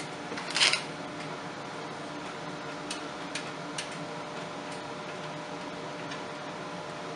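Hands working on parts of a PC case: a short scrape about half a second in, then a few sharp small clicks spread over the next few seconds, over steady background noise.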